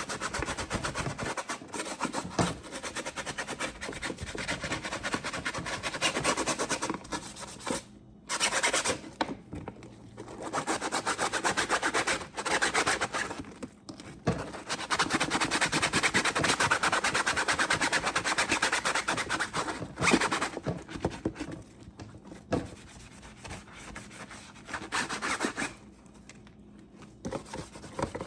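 A Scrub Daddy sponge scrubbed rapidly back and forth against a dishwasher's mesh filter to work off dark spots of grime, in several spells broken by short pauses.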